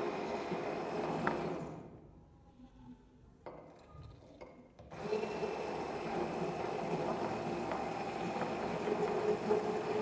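Stainless-steel stick blender running in a glass jar, blending olive oil with a lye (drain-opener) solution as the soap batter starts to thicken. It cuts out about two seconds in and starts up again about three seconds later.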